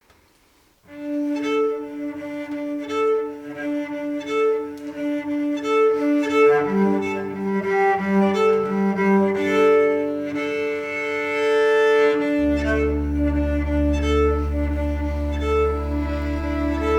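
Instrumental string intro: cello and violin playing a repeating melodic figure, with a low bass line coming in about twelve seconds in.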